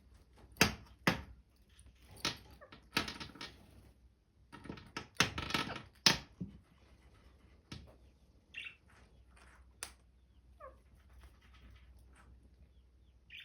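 Indian ringneck parrots giving a run of short, harsh squawks, with a few thinner chirps and a brief falling whistle later on.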